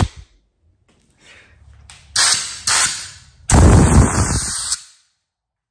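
A disposable glove stretched by hand snapping with a sharp crack at the very start. Then a compressed-air blow gun fired in two short hissing blasts and one longer blast of about a second.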